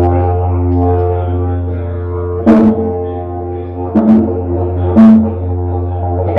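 Wooden didgeridoo played live: a steady low drone with shifting overtones, broken by three sudden louder accents about two and a half, four and five seconds in.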